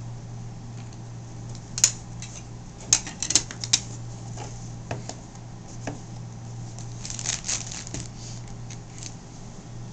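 A rigid trading-card box and the wrapped card pack inside it being handled on a table. Scattered sharp clicks and taps, the loudest about two seconds in and a quick cluster a second later, then a short rustle near the end, over a steady low hum.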